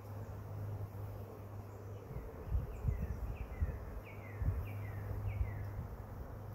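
Honeybee swarm buzzing steadily from a cluster hanging on a tree branch. A bird gives a series of about six short, downward-sliding chirps in the middle, and a few low thumps come through at the same time.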